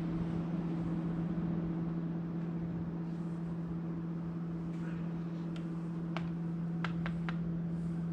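Steady flight-deck hum with a constant low tone and its overtone, broken by a few short sharp clicks about six to seven seconds in.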